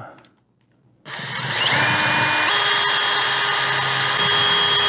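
DeWalt cordless drill starting up about a second in, drilling a handle hole through a cabinet drawer front; its motor whine steps up in pitch twice as it speeds up, then runs steady.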